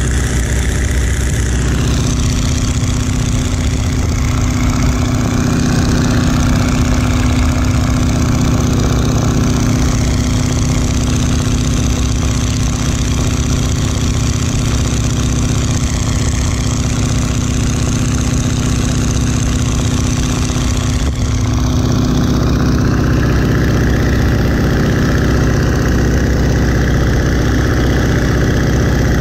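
1941 Boeing Stearman biplane's radial engine and propeller running steadily in flight, loud, with wind rushing past the open cockpit.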